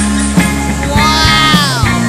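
Background music with a steady beat and a held note that bends downward about a second in.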